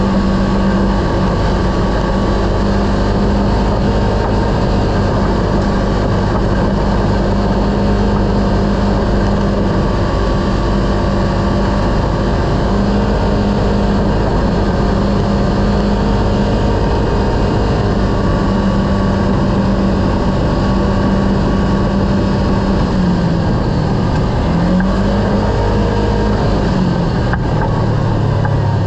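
Kawasaki Teryx KRX side-by-side's parallel-twin engine running at a steady drone under a rushing noise. The pitch dips and climbs back a couple of times about two-thirds through, then drops lower near the end as the engine slows.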